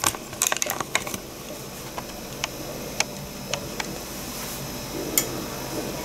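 A quick patter of small clicks and rattles in the first second, then single light clicks about every half second to a second, over a faint steady hum.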